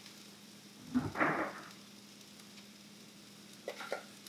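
Diced apples tipped from a stainless steel bowl into a hot skillet of frying sweet potatoes and onions: a knock about a second in, then a short burst of sizzling that settles into faint steady frying. A couple of light clicks come near the end.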